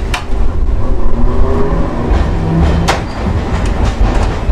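Hankai Tramway Mo 351 streetcar running, its nose-suspended (tsurikake) traction motors whining over a low rumble from wheels and rails. Two sharp clicks come, one at the start and one about three seconds in.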